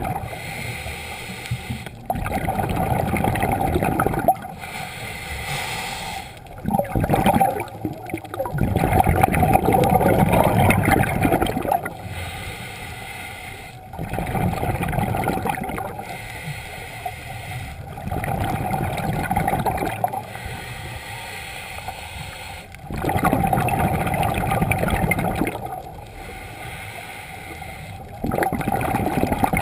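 Scuba diver breathing underwater through a regulator: exhaled bubbles gurgle in loud bursts of two to four seconds, about every four to five seconds, with quieter stretches between breaths.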